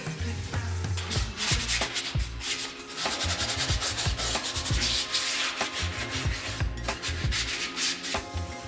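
Repeated rubbing strokes on a surface, coming in noisy bursts, with background music and a bass line underneath.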